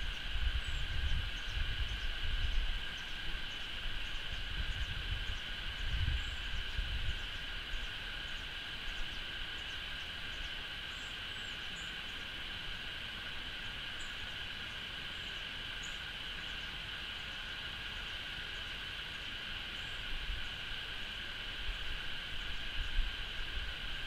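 Outdoor ambience: a steady, high-pitched insect drone, with faint short high ticks repeating through the first half. Wind buffets the microphone in the first few seconds and again near the end.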